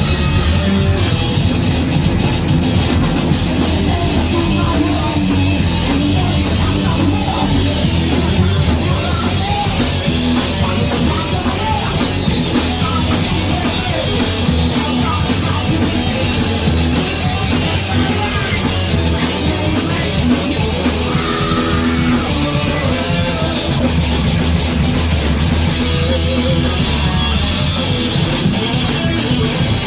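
Thrash metal band playing live: distorted electric guitars, bass and drum kit, loud and dense.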